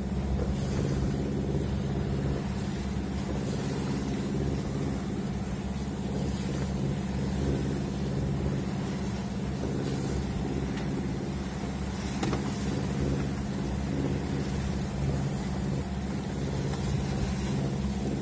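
A sailing yacht's inboard engine running steadily under way, a low even drone with a constant pitch.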